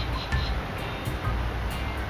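Music with a steady beat of sharp ticks about twice a second, over an uneven low rumble.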